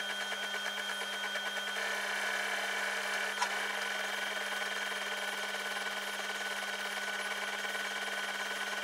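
CO2 laser cutter engraving acrylic: the head's drive motors buzzing in a fast pulsing pattern over a steady hum, with the air assist blowing constantly. Just under two seconds in, the pulsing gives way to a smoother steady whir, and a single sharp click comes a little later.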